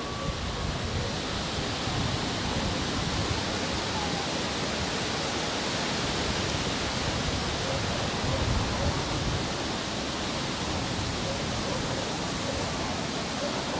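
Steady rushing noise of wind in the trees and buffeting the microphone, swelling in gusts, with no distinct chuffs standing out.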